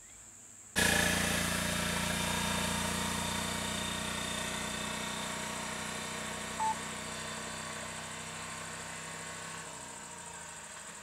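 Vehicle engine idling steadily, starting abruptly about a second in and slowly fading. A steady high insect drone runs beneath, and a brief beep sounds about two-thirds of the way through.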